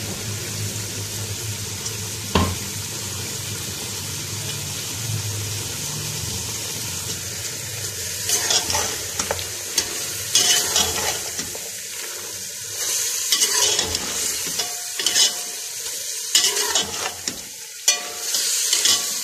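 Mutton and beetroot frying in oil in a pressure cooker pot, sizzling steadily, as the masala is fried down (bhuna). From about eight seconds in, a metal spoon scrapes and stirs against the pot in repeated strokes.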